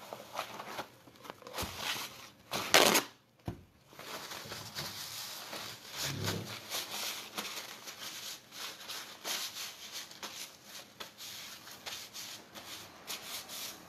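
Paper towel torn from a roll, with one brief loud rip about three seconds in, then crumpled and rubbed between the hands as they are wiped dry, a soft scratchy rustling.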